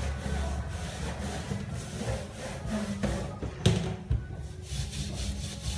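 Metal ladle scraping and skimming in a steel pot of boiling soup, with one sharp knock of the ladle against the pot about three and a half seconds in.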